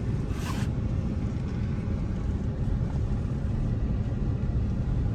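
Steady low rumble of a moving car, engine and tyre noise heard from inside the cabin, with a brief hiss about half a second in.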